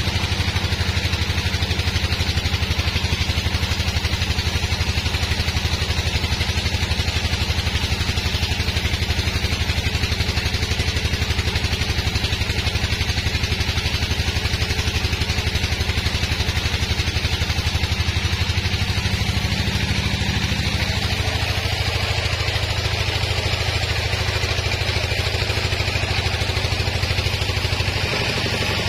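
Large band sawmill running: a steady machine drone with a fast, even pulse and a hiss over it. The deepest part of the drone thins out about three quarters of the way through.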